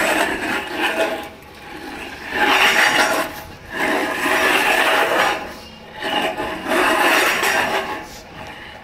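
Stainless steel dog bowl scraping and sliding over a stone floor as a pug pushes it around, in about four rasping bursts of a second or two each.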